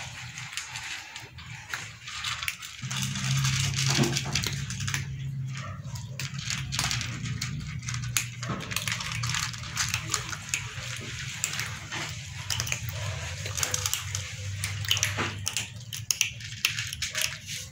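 Several cats crunching dry kibble from food trays, a dense run of small crunching clicks. A low steady hum comes in about three seconds in.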